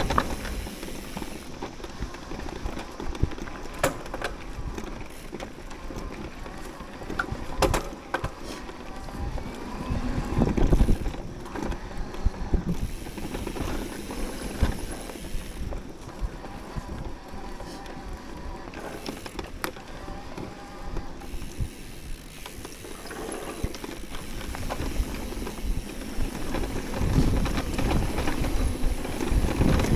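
Mountain bike being ridden over a rough dirt trail: a steady rumble of tyres and wind on the microphone, with frequent knocks and rattles of the bike over bumps, louder about a third of the way in and again near the end.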